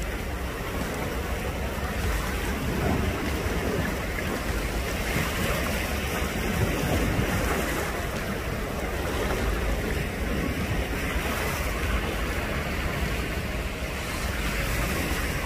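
Steady rushing noise of wind buffeting the microphone outdoors, with a strong low rumble and no distinct events.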